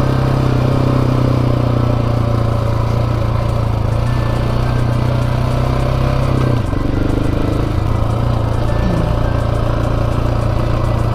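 Dirt bike's single-cylinder engine running steadily under way on a trail, with a slight drop in engine pitch about two-thirds of the way through.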